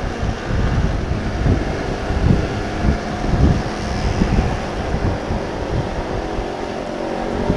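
Wind buffeting the helmet-mounted mic of a moving motorcycle, an uneven low rumble in gusts, with the bike's engine running steadily underneath.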